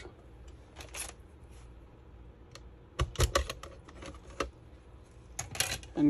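Sharp plastic clicks and snaps, a cluster about three seconds in and a few more near the end: the clipped-on plastic back cover of a ZTE MC801A 5G router being pried loose with a plastic pry tool.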